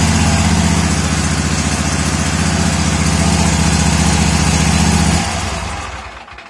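Toro TimeCutter SS4225 zero-turn mower's engine running steadily just after starting, then stopping about five seconds in and dying away over a second. It starts and runs with its failed brake controller bypassed by jumper wires.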